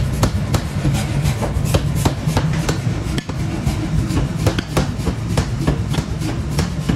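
Hammer blows on red-hot steel in a forge: sharp metal strikes at an even pace of about three a second over a steady low machinery hum, with a sledgehammer hitting the glowing bar near the end.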